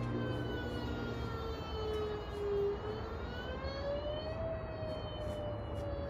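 Mini Whelen siren wailing: a slow gliding tone that falls to a low point about two and a half seconds in, rises again to a peak near four and a half seconds, then starts to fall.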